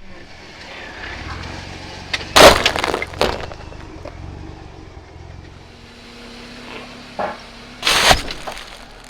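Vehicle tyre crushing brittle objects, with sharp cracking and breaking crunches. The two loudest come about two and a half seconds in and again about eight seconds in, with smaller cracks just after the first and just before the second. The vehicle's engine runs low and steady underneath.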